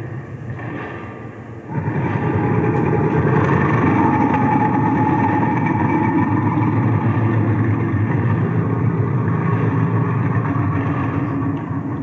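Loud, harsh rumbling noise, given as the creature's sound, that comes in suddenly about two seconds in and then holds steady.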